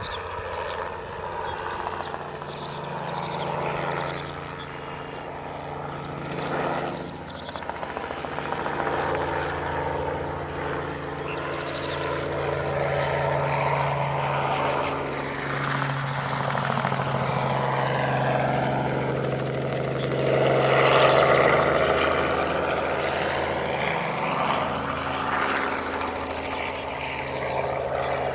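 Crop-spraying helicopter making low passes over a field, its steady rotor and engine drone swelling and fading as it comes and goes, loudest about three quarters of the way through.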